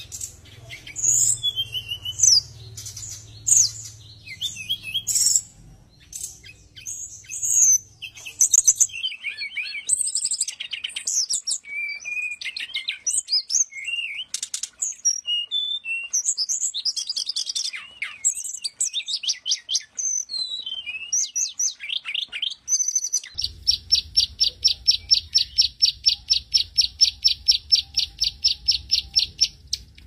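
Caged brown-chested jungle flycatcher singing a varied song of high chirps and whistled, sliding notes. From about 23 seconds in, the song turns into a fast, even run of repeated high notes.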